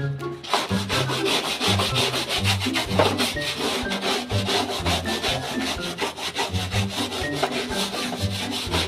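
Upbeat background music with a bass line that steps between notes and a fast, steady scraping beat over it.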